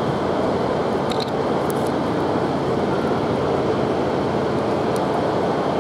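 Steady, even rumbling hum of a railway station under its glass trainshed roof, from trains standing at the platforms, with a couple of faint clicks.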